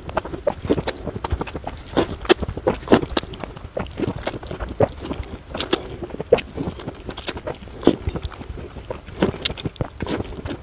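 Glass noodles in chili broth being slurped and chewed: a rapid, irregular run of wet sucking and smacking clicks.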